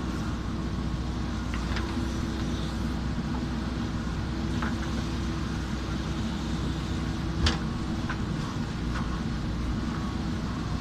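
JCB backhoe loader's diesel engine running steadily, with a few short sharp knocks; the loudest comes about two-thirds of the way through.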